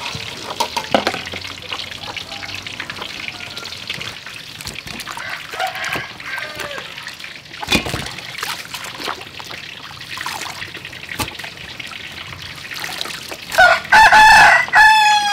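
Rooster crowing loudly near the end. Before it, water splashing and trickling as hands wash cabbage leaves and chilies in a basin of water.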